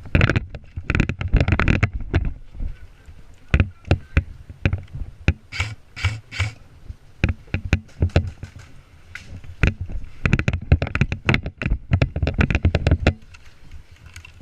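Irregular knocks, thuds and rustling close to the microphone, as of footsteps and gear moving while walking, stopping abruptly near the end.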